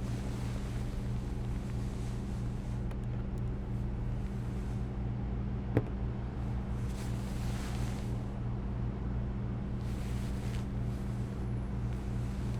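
Steady low motor drone, with a single sharp click about six seconds in and two brief rushing swells of hiss later on.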